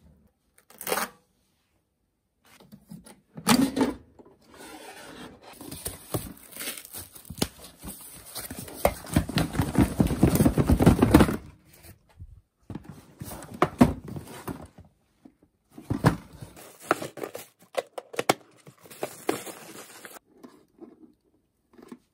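A new toaster's cardboard box and plastic wrapping being torn open and handled: tearing and crinkling, loudest as a dense rustle of a few seconds about halfway through, with short knocks and clicks between brief pauses.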